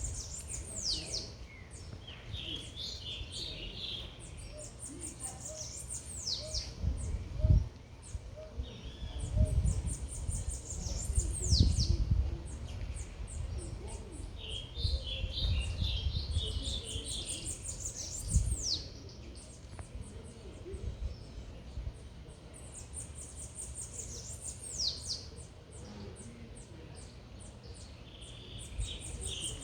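A songbird repeats its song about every eight seconds: a quick run of high, thin notes ending in a downward-sweeping whistle, with lower twittering between phrases. Underneath is a steady low city rumble with a few dull thumps, the loudest about seven and a half, twelve and eighteen seconds in.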